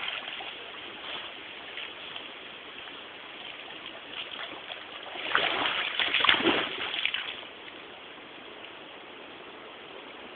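A dog splashing in water, loudest in a burst of about two seconds in the middle, over a steady trickle of running water.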